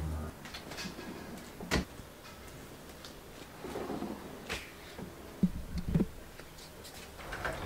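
Small clothes being handled and sorted in a dresser drawer: soft fabric rustling with a few light knocks and clicks from the drawer and its organizer boxes.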